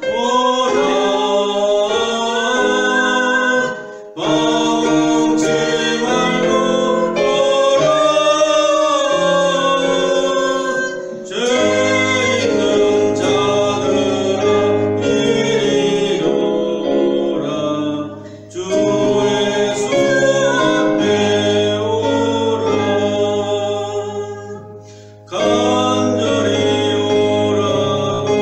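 A man and a woman singing a hymn in Korean as a duet over an instrumental backing track, in long phrases with short breaks between them. A low bass line comes in a little under halfway through.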